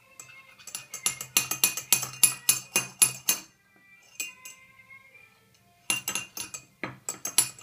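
A metal teaspoon clinking rapidly against the inside of a ceramic mug as a small child stirs, in a fast run of clinks lasting about three seconds, then a pause and a shorter run near the end.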